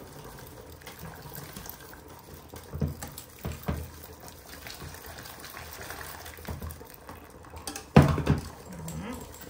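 Hot water poured into a steel pot of mushrooms and flour roux while a wire whisk stirs it, with a few light knocks and one loud knock about eight seconds in.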